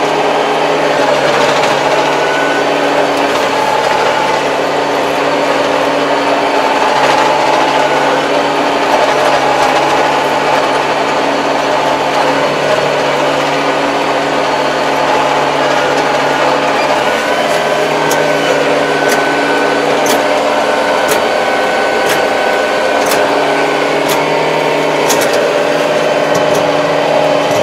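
Kubota 75 hp tractor's diesel engine running steadily at an even speed, heard from inside the cab, with a few light ticks in the second half.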